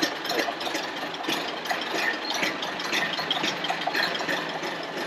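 1929 Ford Model A's four-cylinder flathead engine running just after it has been started.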